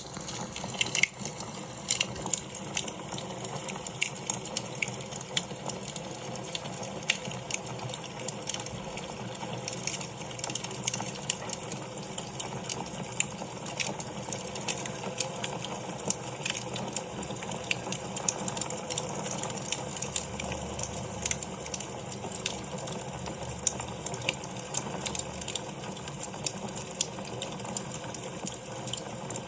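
Wood fire burning in a fireplace: a steady crackle with frequent irregular sharp pops and snaps, a few of them louder.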